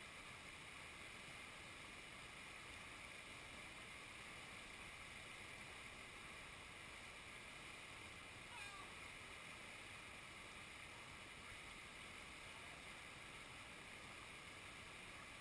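Faint, steady rush of river rapids, white water running over rocks. One short faint click a little past the middle.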